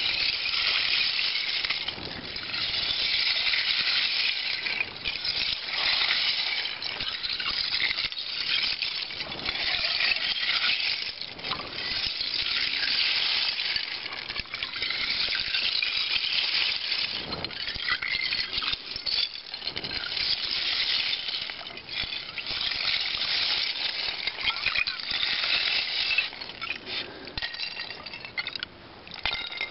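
Candled honeycomb lake ice clinking and crackling without a break, loose ice candles tinkling like glass as the rotten ice is broken up and stirred in the water. It eases for a moment near the end.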